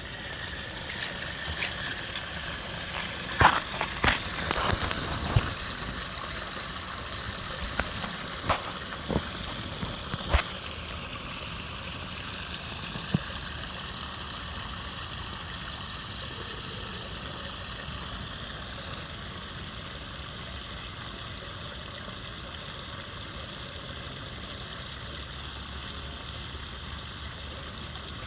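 Floodwater rushing and gurgling as it drains away through a cleared drain. A string of sharp knocks sounds over the water in the first ten seconds, and one more comes a few seconds later.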